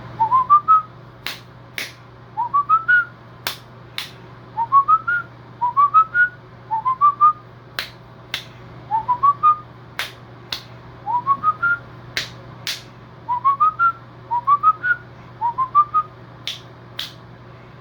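A person whistling the same short phrase over and over, about every two seconds: four quick notes climbing in pitch, a tune repeated for a pet cockatiel to learn. Sharp clicks fall between the phrases, over a steady low hum.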